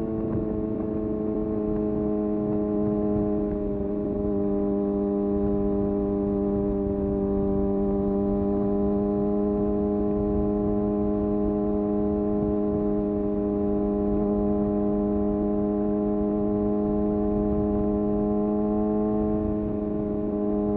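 Kawasaki ZX6R sport bike's inline-four engine running at a steady, fairly high rpm while cruising, its note holding nearly constant and easing off slightly near the end, with wind rumble underneath.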